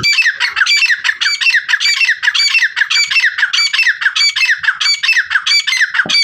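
A pair of grey francolins (Dakhni teetar) calling together in a loud, rapid, rhythmic series of shrill notes, about three a second. The seller takes male and female calling together as the sign of a bonded pair.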